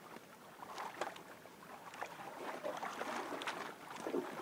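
Water lapping and splashing around a small outrigger canoe as a fishing longline is hauled in by hand, with many short, irregular splashes and taps.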